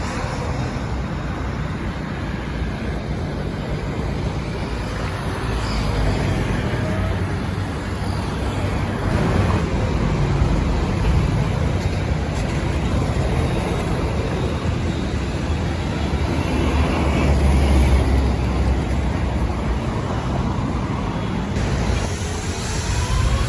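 Jet airliner engines giving a loud, steady rumbling roar that swells a little a few times, blended with road-traffic-like noise.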